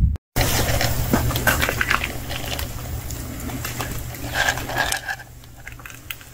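Crunching footsteps and crisp clicks on gritty, gravelly dirt over a low rumble of wind and handling noise, busiest in the first couple of seconds and fading near the end.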